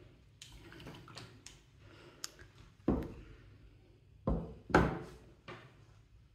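Handling noise of a stretched canvas on a wooden tabletop: light clicks and rustles, then three dull knocks about three, four and a half, and five seconds in as the canvas is picked up and shifted on the table.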